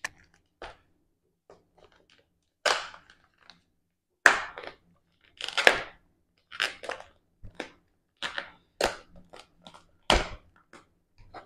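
Crinkling and tearing of a white protective wrap being peeled off a drone's remote controller by hand, in irregular short bursts of rustle, the loudest a little over four seconds in and about ten seconds in.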